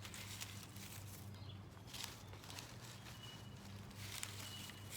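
Faint, scattered rustles and soft crinkles of glue-damp newspaper strips being pressed down and torn by hand, over a steady low electrical hum. A couple of brief high chirps from birds come about three and four and a half seconds in.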